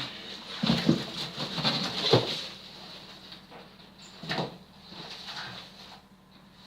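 Irregular knocks, scrapes and rustles of things being handled, over a faint steady low hum.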